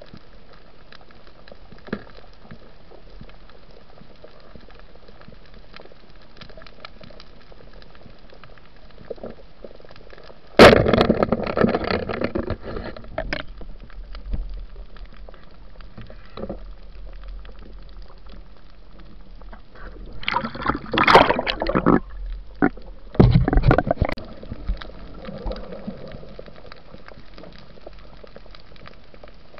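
Water sloshing and gurgling heard through an underwater camera housing, over a steady low hiss. A sudden loud burst comes about ten seconds in and dies away over a few seconds, and two shorter bursts follow a little past twenty seconds.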